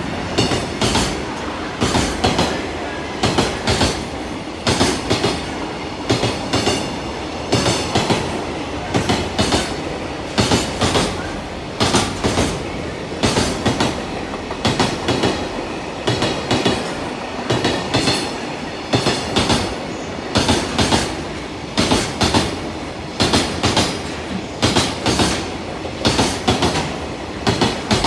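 Wheels of a container freight train's wagons rolling over rail joints, a continuous clickety-clack in repeated clusters of sharp clicks about every one and a half seconds over a steady rolling noise.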